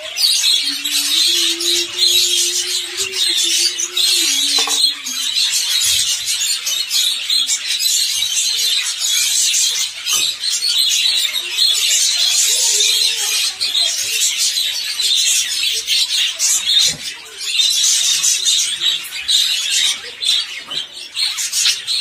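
Many budgerigars chattering and chirping without a break in a dense, high twitter.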